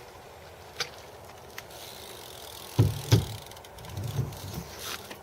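BMX bike knocking and rattling: a couple of light clicks, then two heavy thuds close together about three seconds in, followed by several softer knocks.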